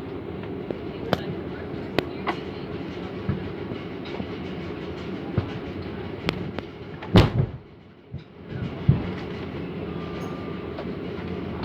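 A steady mechanical drone with scattered clicks and knocks, including two louder knocks in the second half.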